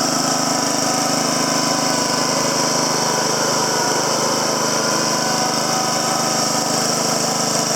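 Honda HRM215 SX Harmony lawn mower's GCV140 single-cylinder engine running at a steady speed.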